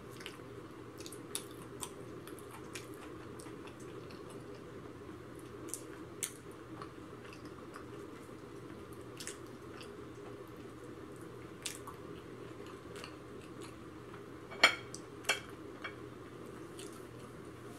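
Close-up eating sounds of fried chicken being chewed and picked apart by hand: soft wet mouth noises with scattered sharp clicks, the loudest a pair about fifteen seconds in, over a steady background hum.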